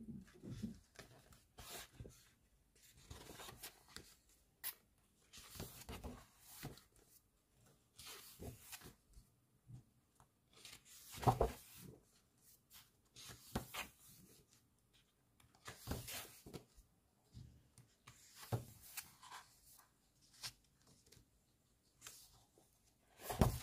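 Pages of a large photobook being turned and smoothed by hand: soft paper rustles and swishes every second or two, the loudest about eleven seconds in and again near the end.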